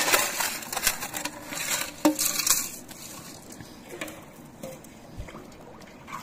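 A fire-blackened metal cooking pot being scrubbed by hand with sand and a sacking scrubber to clean off soot: gritty scraping with small clinks and a knock. The scraping stops about three seconds in and it goes much quieter as the pot is dipped in the water.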